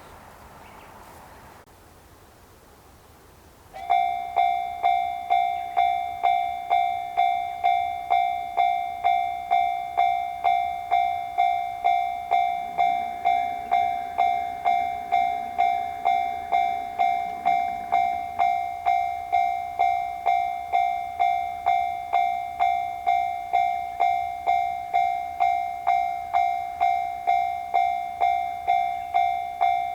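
Japanese railroad crossing warning bell starts about four seconds in and rings on in an even, rapid 'kan-kan' rhythm of about one and a half strikes a second, a bright ringing tone, signalling that a train is approaching and the crossing is closing.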